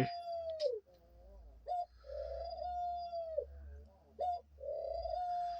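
Pet dove cooing: three long, steady coos, each ending in a falling note, with short notes in between.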